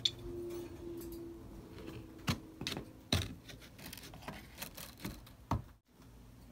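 Scattered sharp clicks and taps of small plastic toy horses being handled and set down in a miniature arena with grainy footing.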